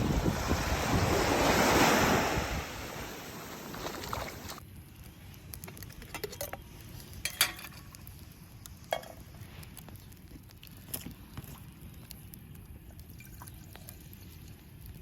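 Sea waves washing onto the shore with wind buffeting the microphone, swelling about two seconds in and then fading. After an abrupt drop about four and a half seconds in, a quieter background with scattered sharp clicks and snaps.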